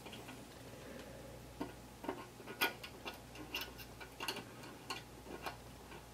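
Faint, irregular small clicks and taps, starting about a second and a half in, as a Train-Tech BL1 buffer light is handled and its contacts are fitted between the rails of OO gauge track at a buffer stop.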